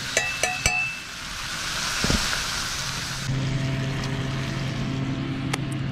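Fish fillets sizzling in a cast iron skillet, with a few sharp clinks of a metal fork against the pan in the first second. About three seconds in, the sizzle drops away and a steady low hum takes over.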